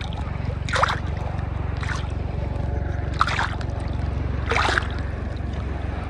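Small sea waves splashing against a camera held at the water's surface: four short splashes over a steady low rumble of water and wind on the microphone.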